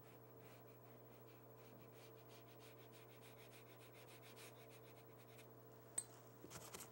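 Faint strokes of a watercolor brush on paper, a soft swishing repeated a few times a second over a low steady hum. There is a sharp click about six seconds in.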